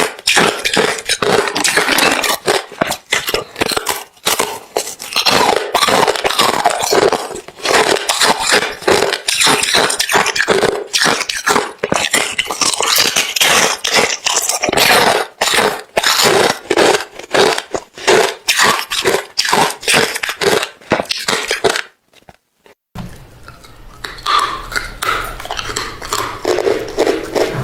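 Close-miked chewing of hard refrozen crushed ice: a dense run of loud crunches, breaking off about three-quarters of the way through, then resuming more quietly.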